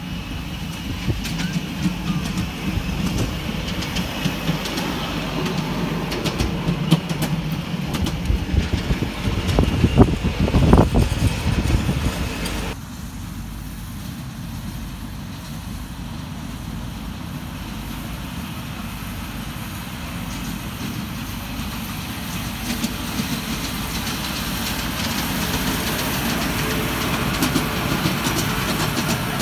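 7¼-inch gauge miniature trains running on their track, with a run of louder knocks about ten seconds in. The sound drops suddenly about thirteen seconds in, then builds again as a miniature locomotive hauling wagons draws close near the end.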